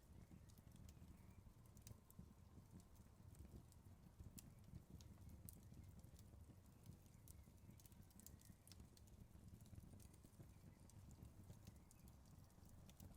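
Wood fire crackling faintly: irregular sharp pops and snaps over a low steady rumble of the burning logs.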